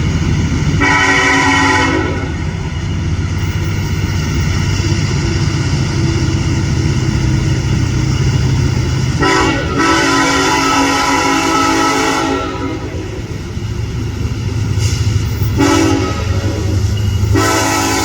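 Diesel locomotive's multi-chime air horn blowing four blasts: a short one about a second in, a long one of about three seconds near the middle, a brief toot later, and another long blast starting near the end. Under the horn runs the steady low rumble of the passing train.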